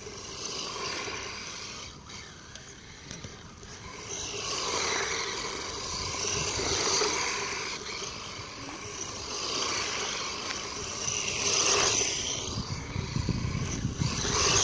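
1:14-scale HSP Wild Wind rally RC car with a brushless electric motor driving through snow: the motor runs and the tyres churn and spin through the snow, getting louder and softer in several swells as the car turns and passes.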